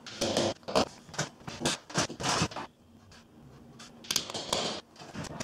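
Spirit level rubbed and shifted against an MDF picture rail and wall in short scraping strokes: several in the first couple of seconds, then another about four seconds in.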